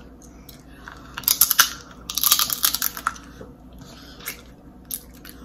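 Crab-leg shell cracking and crunching in the hands: two bursts of dense crackling, the second longer, followed by a few single clicks.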